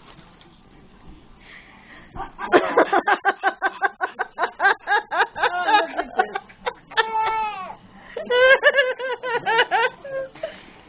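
A baby laughing and squealing in rapid, high-pitched pulses starting about two seconds in, with longer squeals that fall in pitch near the middle and again later.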